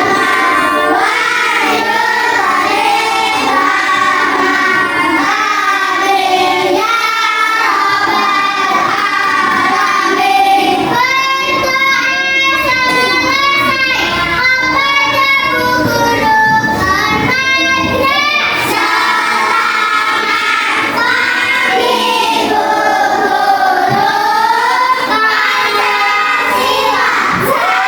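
Children singing a song together, with held, wavering notes through the middle.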